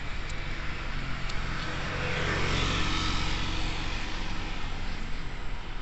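Road traffic: a motor vehicle passes, its noise swelling and fading about halfway through, over a steady low engine hum.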